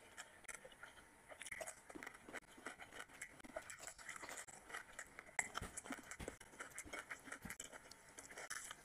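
Close-miked eating sounds of a person eating mutton curry and rice by hand: chewing with faint, irregular small clicks and crackles.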